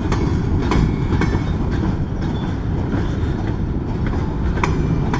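BNSF covered hopper freight cars rolling past: a steady rumble of steel wheels on the rails, broken by irregular clacks as the wheels cross rail joints, a few with a brief metallic ring.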